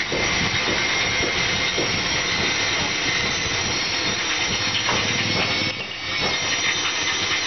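Steady machine noise: a constant hiss with a high whine held throughout, dipping briefly about six seconds in.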